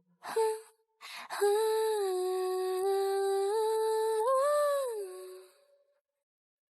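A single humming voice holding a slow, smooth tune, pitched like a woman's voice, that steps up briefly near the end and settles back down.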